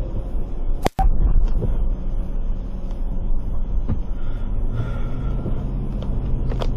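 Car cabin noise while driving: a steady low rumble of engine and road, which cuts out briefly about a second in.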